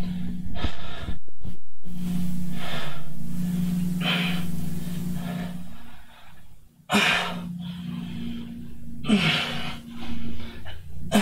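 A man breathing hard from exertion, with several loud, noisy breaths a second or two apart.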